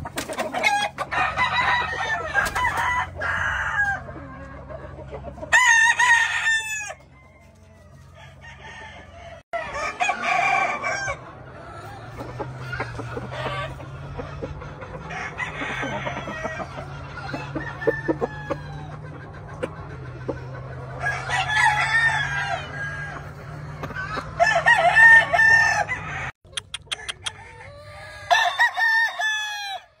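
Gamefowl roosters crowing again and again, the crows often overlapping, from more than one bird. A steady low hum runs underneath until it stops abruptly near the end.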